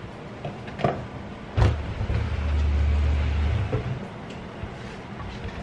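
Wooden spoon stirring and knocking as flour is worked into boiling butter and water in a stainless steel saucepan to make a dough. A loud low rumble lasts about two seconds in the middle.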